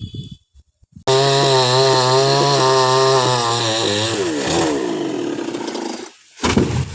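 Chainsaw running at high revs, then its pitch falling as the throttle is let off, cutting out about six seconds in. A brief noisy burst follows near the end.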